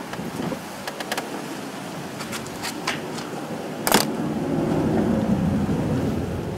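Light metal clicks and clinks of a T-handle socket wrench on the scooter engine's valve cover bolts, with one sharp clank about four seconds in as the tool comes away, over a steady low outdoor rumble.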